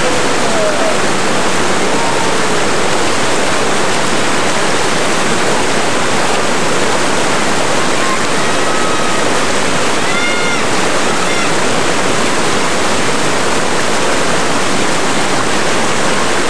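Loud, steady rush of whitewater: river rapids at a flow of 2600–3100 cfs pouring into a large foaming hole. There is a brief, faint pitched sound about ten seconds in.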